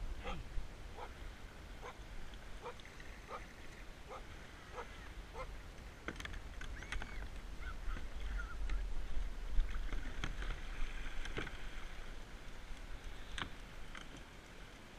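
Repeated short animal calls, about two a second at first and then more scattered, over a low wind rumble on the microphone.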